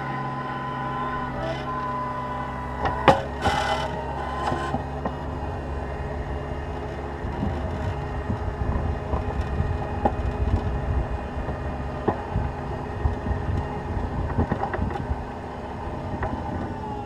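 Cat 236B skid steer loader's diesel engine running steadily while plowing snow. A sharp knock comes about three seconds in, and uneven low rumbling with small knocks fills the second half.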